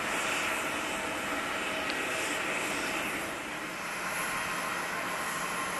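Jet airliner engines running: a steady rush of noise with thin, high, steady whining tones, easing slightly a little past halfway.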